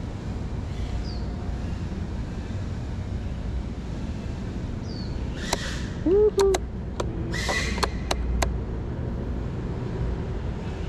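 Wind buffeting the microphone with a steady low rumble. Around the middle comes a short cluster of sharp clicks and knocks, with one brief, loud pitched sound among them.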